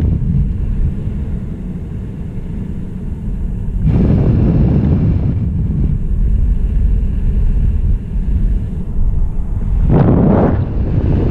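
Wind buffeting the onboard microphone of a descending balloon payload: a steady low rumble that swells louder about four seconds in and again near the end.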